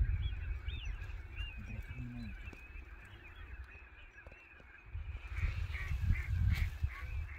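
A large flock of waterfowl on open water calling all at once, a dense, unbroken chorus of many overlapping calls, with a few individual calls standing out in the second half. Wind rumbles on the microphone, easing in the middle and coming back stronger about five seconds in.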